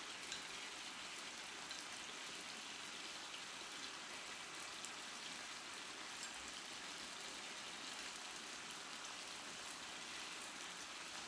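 Marinated pork belly sizzling steadily in a frying pan on a portable gas burner.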